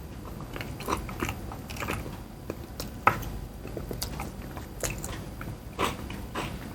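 A person eating, biting and chewing toasted pav bread with bhaji, heard as a scatter of short, irregular clicks.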